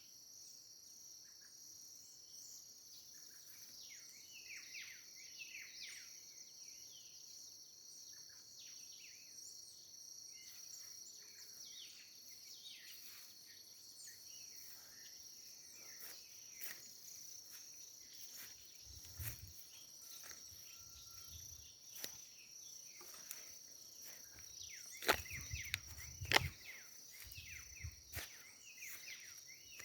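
Birds chirping over a steady, high-pitched drone of insects. Near the end come a few sharp clicks with a low rumble, the loudest sounds.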